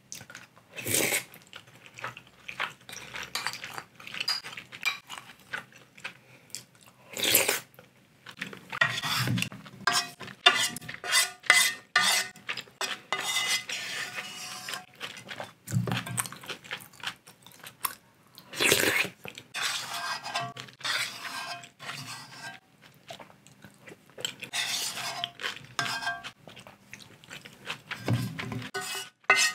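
Wooden spoon scraping and knocking against a metal pot as the last leftovers are scooped out, with eating sounds in between.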